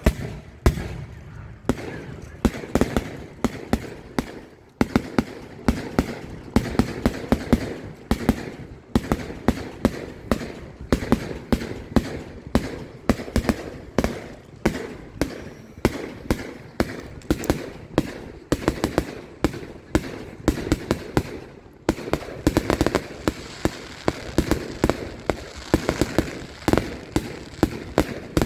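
Fireworks display heard from close range: a rapid, continuous barrage of aerial shell bursts and cracks, several bangs a second with echoing tails, broken by a brief pause about five seconds in and another near the end.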